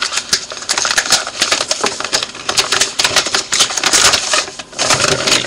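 A mailing envelope and its packaging being handled and opened close to the microphone: paper and plastic crinkling and rustling in rapid, irregular crackles.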